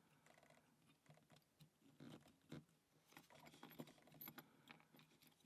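Faint, scattered small clicks and taps: tweezers handling the tiny pins of a disassembled cross lock cylinder.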